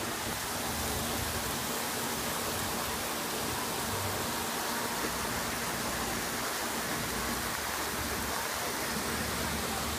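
Heavy downpour falling steadily, an even hiss of rain with no breaks.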